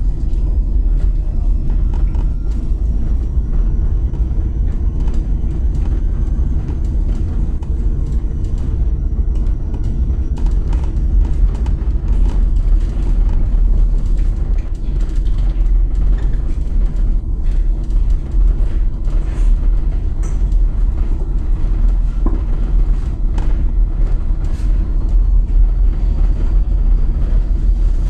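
Cabin of a small electric minibus driving over cobblestones: a steady low rumble from the tyres on the stone paving, with frequent small rattles and creaks from the bus interior. A faint high whine slowly rises in pitch over the first several seconds and again near the end.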